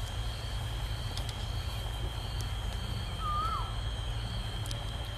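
Outdoor ambience: a steady low rumble under a continuous high insect drone. A bird gives one short whistled call that falls away at its end, about three seconds in.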